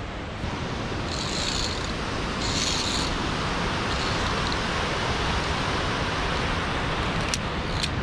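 Steady rushing roar of the Stuibenfall, a tall alpine waterfall: a dense, even noise of falling water.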